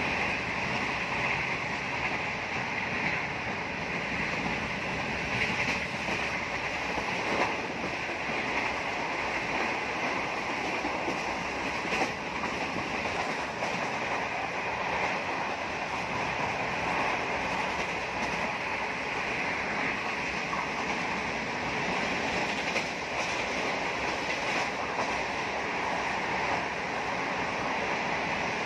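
Passenger train running at speed, heard from on board: a steady rumble and rush of track and wind noise, with two sharp clicks from the wheels over the rails.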